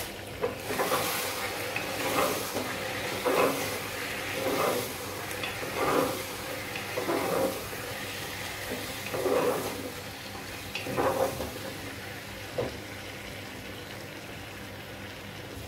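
Mutton liver and masala frying in an open aluminium pressure cooker, sizzling steadily. A wooden spatula stirs and scrapes the pot about every second and a half, and the strokes stop a few seconds before the end.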